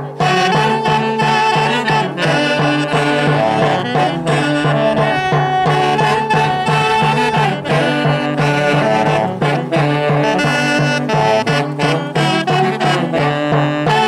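A band of six saxophones and a hand-held drum playing a tune together, the saxophones holding the melody over a steady drum beat.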